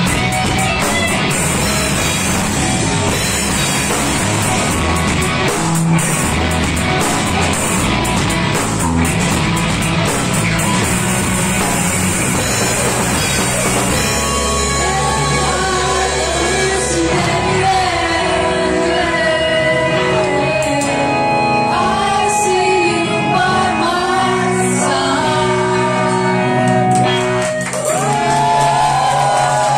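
Live rock band playing loud: drum kit with crashing cymbals, electric guitars and sung or shouted vocals. About halfway through, the cymbal wash thins and bending guitar notes and vocals come to the front.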